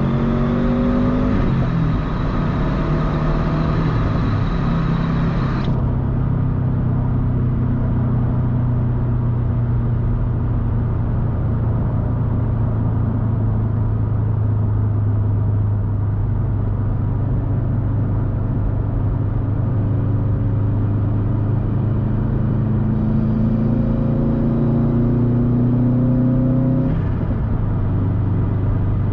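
2013 Subaru STI's turbocharged 2.5-litre flat-four running through a titanium Tomei Expreme Ti exhaust while driving. It rises in pitch at the start, settles into a steady low drone while cruising, then climbs in a long rise before dropping suddenly near the end.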